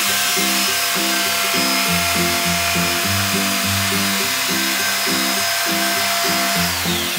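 Electric jigsaw running at steady speed as it cuts through a black-faced plywood panel, a constant motor whine over the rasp of the blade, dipping in pitch briefly near the end. Background music with a steady beat plays underneath.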